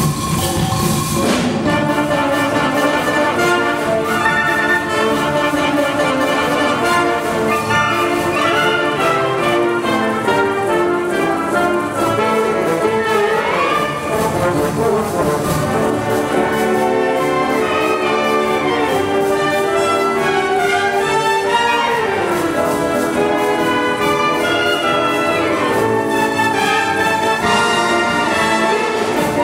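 A wind orchestra of flutes, clarinets and other winds playing a piece live under a conductor. A few notes slide up and down in pitch partway through.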